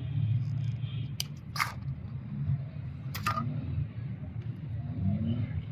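A few sharp clicks and taps from hand work on a CV axle boot and its clip, over a steady low hum.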